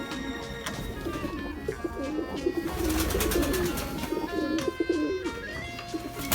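Nikolaev pigeons cooing, a warbling coo strongest through the middle, over background music.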